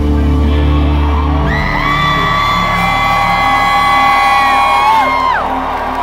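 Live rock concert music over the PA. The heavy bass drops out about a second and a half in, and a voice holds a long high note for about three and a half seconds before sliding down.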